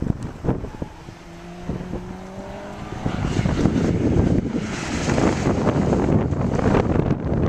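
A car engine accelerating, its pitch rising steadily. From about three seconds in, a louder rushing noise takes over, with wind buffeting the microphone.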